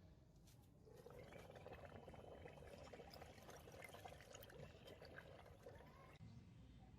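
Faint pouring of liquid into a container, starting about a second in and stopping abruptly near the end.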